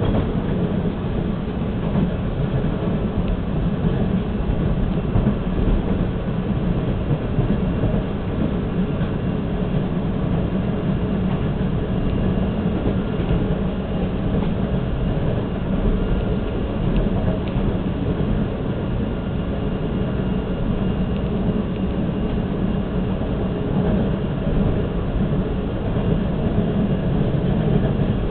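Toronto subway train heard from inside the car while running between stations: a steady, even rumble of wheels and motors on the track.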